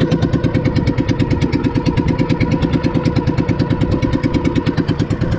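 Outrigger fishing boat's engine running steadily under way, a loud, rapid, even pulsing with a steady whine above it.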